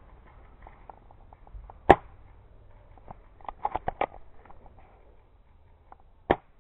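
Airsoft guns firing: a sharp single pop about two seconds in, a quick string of fainter pops a couple of seconds later, and another loud single pop near the end.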